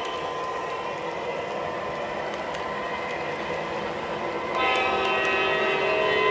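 O gauge model freight train rolling past, a steady rumble of wheels on the track; about four and a half seconds in, the model locomotive's sound system blows a multi-note diesel horn.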